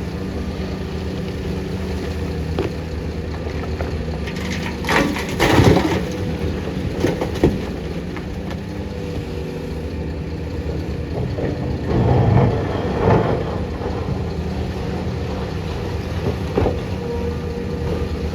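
Heavy excavator's diesel engine running steadily at work, with loud crashes and scraping of earth and rock being dug or dumped: a long one about a quarter of the way in, another near the middle, and a short crack near the end.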